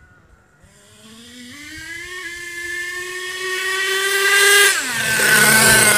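HPI Nitro Savage RC monster truck's two-stroke nitro engine revving up in a high-pitched buzz as the truck accelerates, growing louder as it comes closer. About five seconds in its pitch drops sharply, under a rising hiss.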